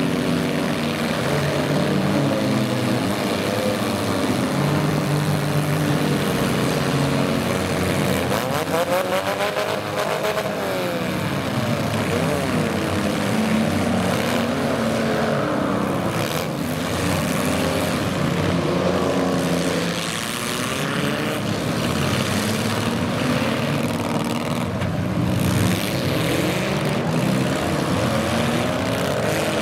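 Engines of several demolition derby cars running together, revving up and down with pitch rising and falling over and over.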